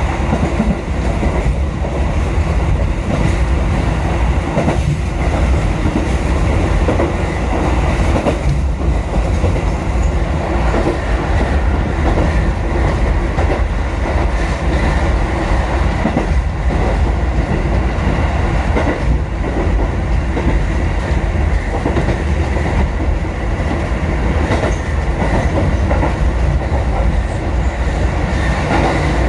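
Kotoden 1080-series electric train running at line speed, heard from inside the front car: a steady low rumble with the wheels clicking over rail joints now and then.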